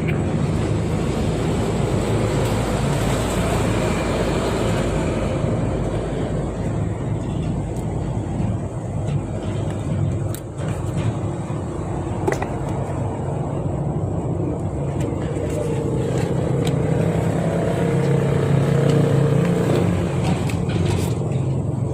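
Steady low background rumble with a low hum, of the kind made by road traffic or a running vehicle, with scattered short clicks that come more often near the end.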